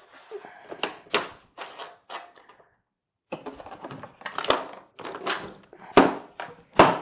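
Hart mechanics tool set case being unfastened: a string of sharp clicks and knocks from its strap and latches, the loudest near the end.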